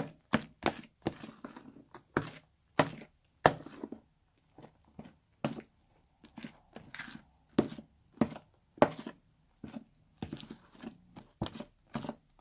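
Slime being squished and pressed by hand, making an irregular series of sharp, wet pops and clicks, about one to three a second.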